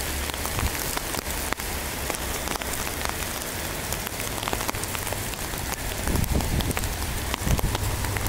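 Heavy downpour with small hail: a dense hiss of rain on the wet street, with sharp ticks of drops and hailstones striking the phone close by. A low rumble joins about six seconds in.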